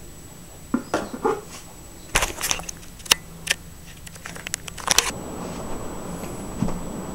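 A scatter of sharp clicks and knocks, then from about five seconds in a steady rush of thunderstorm wind.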